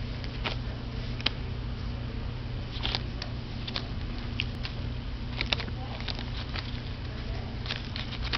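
Young corgi puppies wriggling over and mouthing one another: scattered small clicks and smacks, with a faint squeak about halfway through, over a steady low hum.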